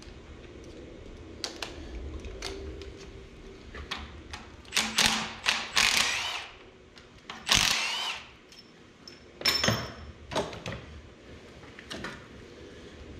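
Power ratchet running in several short bursts, the longest about a second, backing out bolts on the thermostat housing of a 12-valve Cummins diesel, with clicks and clinks of metal parts and tools in between.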